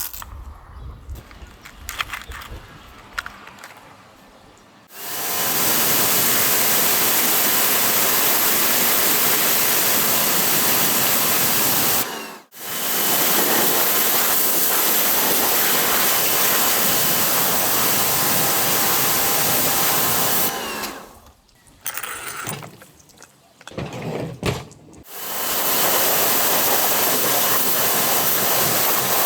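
Pressure washer spraying with a loud, steady rushing hiss, running in three long bursts that cut off abruptly, with brief clicks and knocks of handling before and between them.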